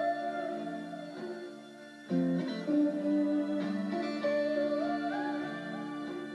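Background music on guitar: plucked notes and held chords, with a chord struck again about two seconds in.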